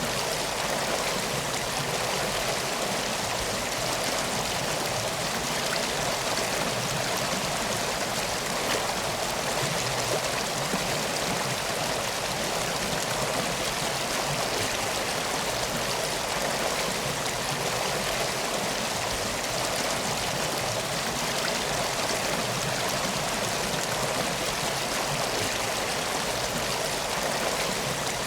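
Flowing river water, a steady, even rush with no breaks.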